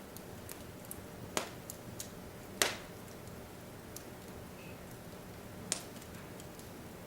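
Wood fire in a fireplace crackling: scattered small ticks over a steady low hiss, with three louder sharp pops.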